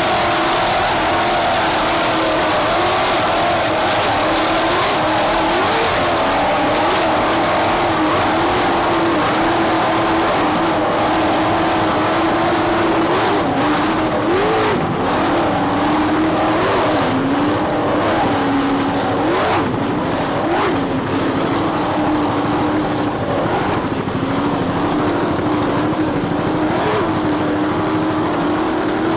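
Offshore racing powerboat engines running hard at speed: a steady, loud drone whose pitch wavers and briefly jumps up several times.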